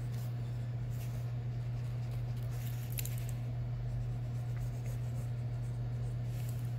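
A pen scratching on paper in short, irregular drawing strokes, over a steady low hum that is louder than the strokes.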